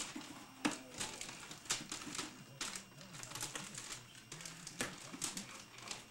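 Irregular crinkles, taps and clicks of gift packaging being handled: cardboard boxes and plastic packaging knocked and turned over by hand.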